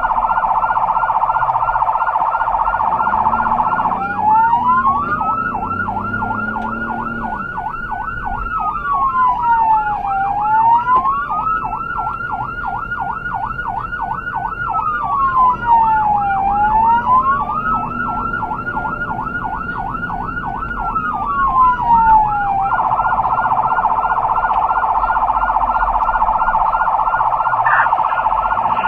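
Electronic emergency-vehicle siren sounding loud and steady. It starts on a fast yelp, then switches to a slow wail that rises, holds and falls three times over a fast warble, and goes back to the fast yelp near the end.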